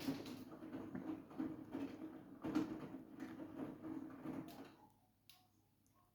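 Siemens iQ700 washing machine drum tumbling the laundry, a run of irregular swishing and sloshing strokes over a low hum. The drum stops about three-quarters of the way through, followed by a single sharp click.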